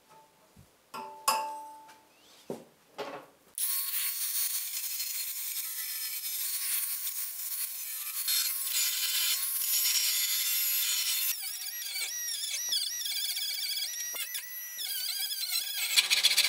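A few clinks of copper pipe being handled, then about three and a half seconds in a power tool starts cutting a slot along the copper pipe: a steady, high-pitched grinding hiss. From about eleven seconds in its whine wavers up and down as the cut goes on.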